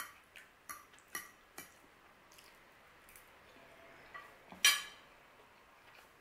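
Metal fork clicking against a ceramic plate while eating, five quick sharp clicks in the first two seconds and a few fainter ones after. One brief louder sound about three quarters of the way through.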